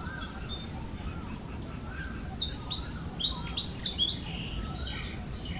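Wild birds chirping: a quick run of sharp, falling chirps about halfway through stands out loudest, over soft whistled notes repeating about once a second. Behind them sit a steady high insect-like buzz and a low rumble of breeze.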